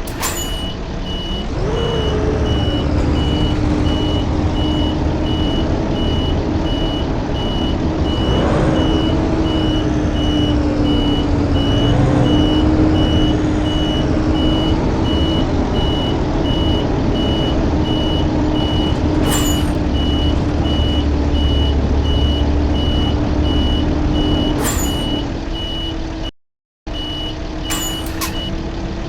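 Blue Bird D3FE bus engine running with a steady drone, while a high electronic beep repeats at an even pace almost throughout. A few sharp clicks or knocks sound along the way.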